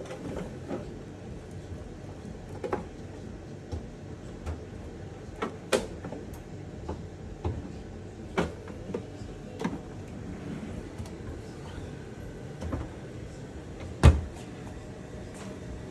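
Scattered light clicks and knocks of parts and tools being handled at a gas cooktop, a dozen or so spread out, the loudest a single sharp knock about fourteen seconds in.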